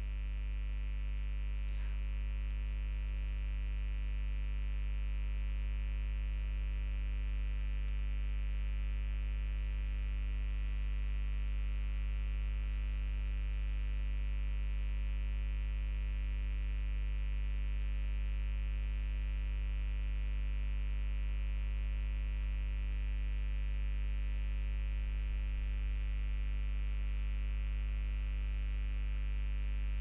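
Steady low electrical hum, with faint steady higher tones above it.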